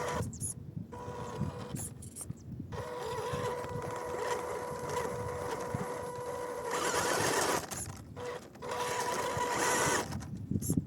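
Small 1/12-scale RC crawler truck's electric motor and gearbox whining in stop-start bursts as the throttle is worked on an obstacle, with a louder rough rasping stretch about seven seconds in.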